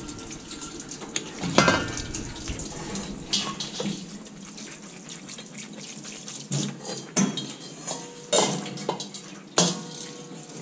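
Water from a hand-held sink spray nozzle hissing over stainless steel milking-machine parts and the steel sink. Several sharp metallic clanks of the parts knocking against steel break in now and then.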